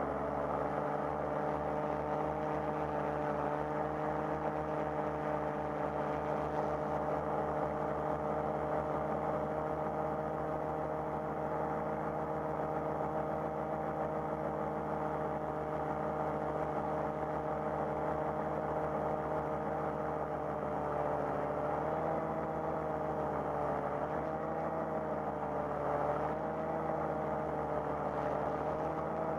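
FPV quadcopter's electric motors and propellers whining steadily in flight. The pitch holds level for most of the time, then wavers up and down in the last third.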